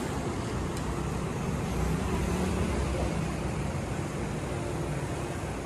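Steady road traffic noise of a busy street, a continuous low rumble of passing vehicles.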